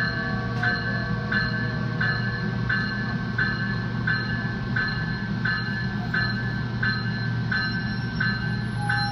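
Metra electric commuter train running, heard from inside the car, with a steady low hum and its bell ringing evenly about one and a half strikes a second.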